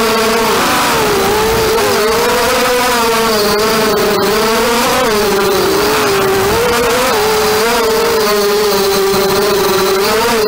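Four Maytech 1806 2300 kV brushless motors of a 250-size FPV racing quadcopter whining in flight, heard from the camera on the quad. The pitch keeps rising and falling with the throttle as it banks and swoops low over the ground.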